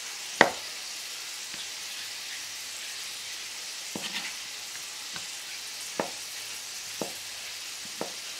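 Knife cutting boiled sausage and knocking on a plastic cutting board: one sharp knock just after the start, then lighter taps about once a second in the second half. Under it, the steady sizzle of onion and tomatoes frying in a pan.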